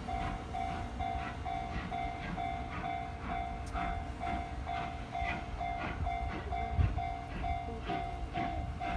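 Japanese level-crossing warning bell ringing steadily, about two strikes a second, while a passing train's wheels clack over the rail joints below it.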